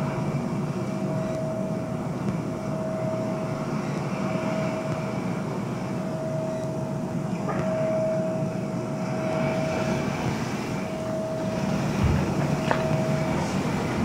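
Ocean surf and wind ambience from the music video's intro: a steady rushing noise with a thin, steady high tone held over it.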